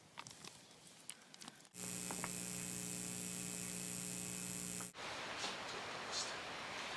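A steady electric buzz with many even overtones, starting abruptly about two seconds in, lasting about three seconds and cutting off suddenly.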